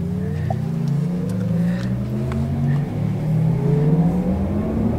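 Porsche Taycan accelerating hard, heard from inside the cabin: a layered electric drive hum that climbs steadily in pitch as the car gains speed.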